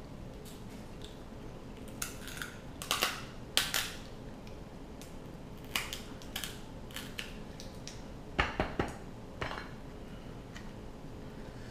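Steamed king crab shell cracking and snapping as pieces are broken open and picked apart by hand, with clicks of a fork against shell and plates. There are a few sharp cracks, the loudest about three to four seconds in and again near eight and a half seconds.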